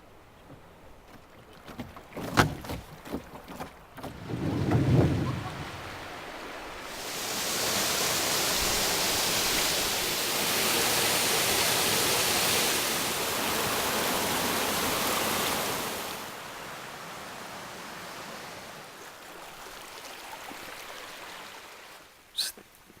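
Rushing water, an even hiss that swells up about seven seconds in, holds for about nine seconds, then eases to a softer wash. A few knocks and a low rumble come in the first five seconds, and a short click comes near the end.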